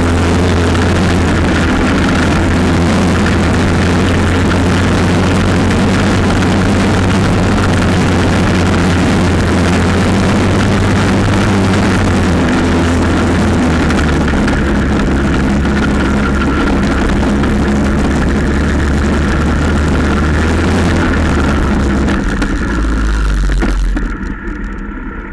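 Quad bike (ATV) engines running steadily as the quads ride along a muddy dirt track. The engine note drops in two steps, the second near the end, and then the sound falls off sharply as the quads slow down.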